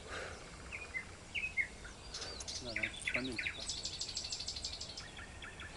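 Songbirds singing: scattered short chirps, then a fast trill of high notes lasting about a second and a half in the second half.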